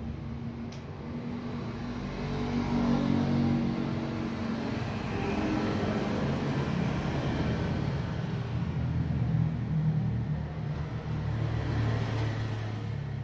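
A motor engine running with a steady low rumble, growing louder about two seconds in and staying so.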